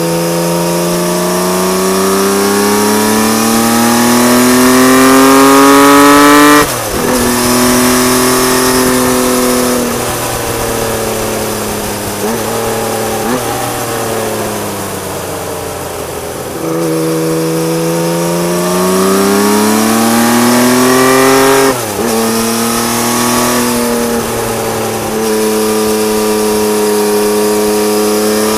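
Honda CBX1000's air-cooled inline-six engine through a loud aftermarket Marving exhaust, accelerating hard: the pitch climbs, then drops sharply at an upshift about a quarter of the way in. The engine eases off and slows, climbs again to a second sharp upshift about three quarters of the way in, then runs steadily.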